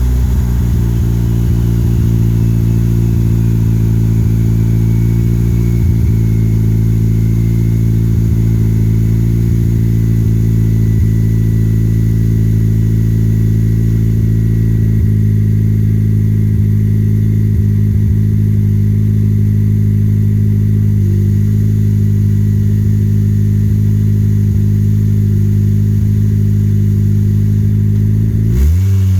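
Turbocharged Honda D16Z6 four-cylinder engine in a Civic running at steady revs under way, one constant engine note with no change in pitch.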